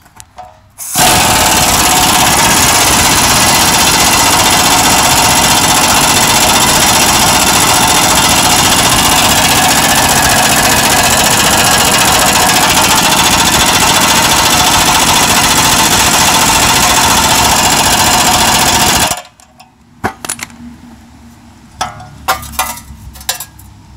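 Plastic-bodied Ingersoll Rand air impact wrench hammering steadily for about eighteen seconds as it screws down a C-clamp ball joint press, pushing a new ball joint into the steering knuckle. It stops abruptly, then a few metal clinks follow as the tools are handled.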